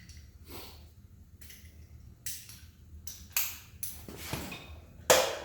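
Hand wrench working a stiff exhaust fastener loose on a 1978 Honda CB750A, in a run of short metallic strokes about every half second to a second, louder toward the end.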